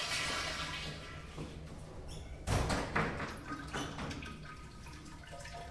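Public restroom sounds: a rushing noise dies away in the first second, then a door bangs shut about two and a half seconds in, with a second knock half a second later and smaller clicks and knocks after it.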